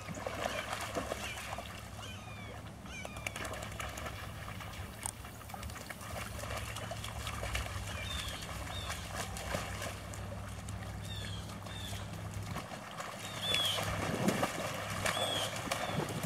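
Dogs splashing and sloshing as they wade and run through shallow water, with splashes now and then and louder splashing near the end.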